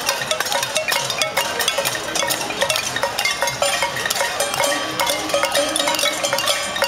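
A crowd banging pots and pans with utensils: a dense, continuous clatter of many overlapping metallic strikes and clanks.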